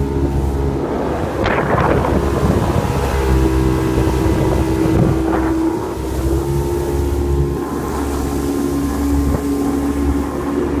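Engine of a High Caliber Customs boat running steadily under way, with wind on the microphone and two brief rushes of noise, one about a second and a half in and one about five seconds in.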